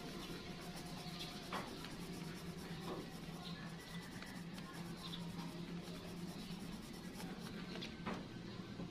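Graphite pencil scratching and rubbing on drawing paper in shading strokes, with a couple of light taps, over a steady low hum.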